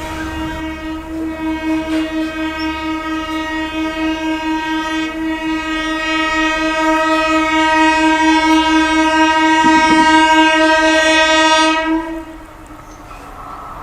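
MEMU electric multiple-unit train horn sounding one long steady blast that grows louder for about twelve seconds, then cuts off. The train's running noise carries on afterwards.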